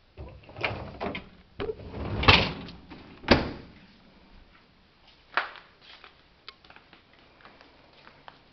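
Cabinet doors being handled and shut: a run of knocks and clatters, with two loud bangs about two and three seconds in, a lighter knock a couple of seconds later, then a few faint clicks.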